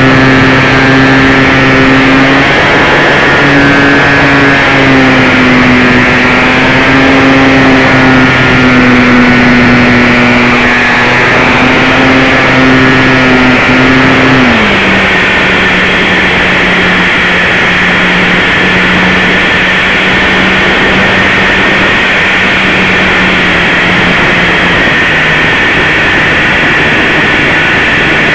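RC model airplane's motor and propeller buzzing loudly right in front of the microphone, over a steady rush of wind. About halfway through the pitch drops suddenly and stays lower as the motor slows.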